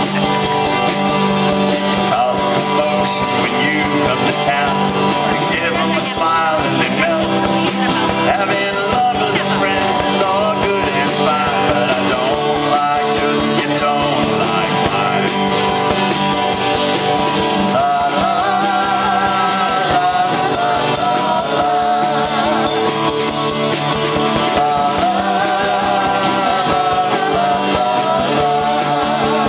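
Small live band playing a jazzed-up rock song: a woman singing lead with vibrato, over a strummed acoustic guitar and a drum kit keeping a steady beat.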